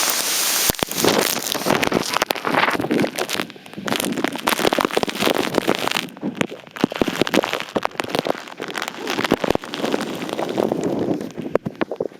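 Hail and heavy rain pelting hard surfaces in a severe storm. It makes a dense, irregular clatter of sharp hits over a rushing rain noise that swells and dips.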